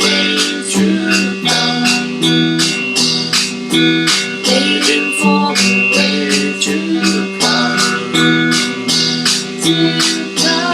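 Acoustic guitar strummed in a steady rhythm, about three strums a second, playing an instrumental passage of a folk song.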